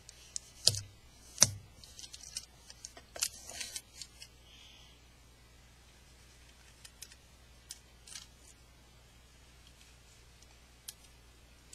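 Handling noise from clear adhesive tape being pressed onto and worked off an iPod: two sharp knocks about a second in, a stretch of crackling, then a few faint clicks.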